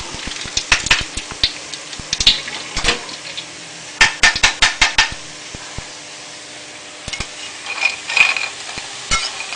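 Metal strainer ladle and wooden spatula knocking and scraping against a wok as fried snack strips are lifted out of the oil to drain, with a quick run of clinks about four seconds in and more clinks near the end as they are tipped onto a ceramic plate.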